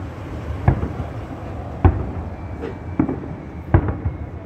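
Aerial fireworks shells bursting overhead: four sharp bangs about a second apart.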